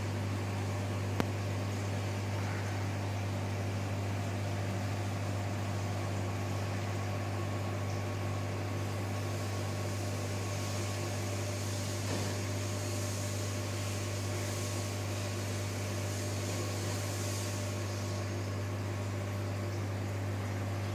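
Large aquarium's air pump and filtration equipment running: a steady low hum with fainter higher tones and a light hiss. A single small click about a second in.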